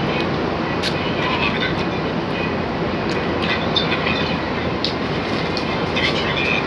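Steady hiss of heavy rain, with short wet clicks and smacks from a man gnawing and sucking meat off a roast duck bone.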